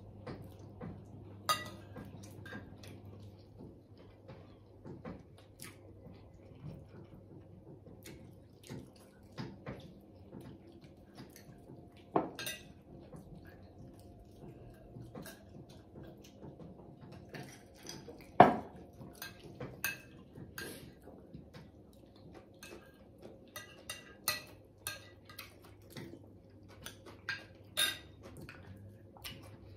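Forks and other cutlery clinking and scraping on dinner plates during a meal, in scattered, irregular knocks. The sharpest knock, about two-thirds of the way through, rings briefly. A faint steady hum runs underneath.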